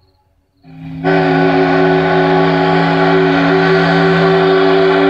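Steam whistle sounding a long, steady blast, a chord of several deep tones, swelling in about half a second in and then holding. Blown at daybreak as a wake-up call.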